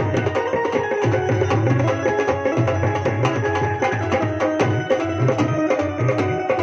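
Live instrumental Punjabi folk music: dholak and dhol drums keeping a fast, steady rhythm under a held keyboard melody, with no singing.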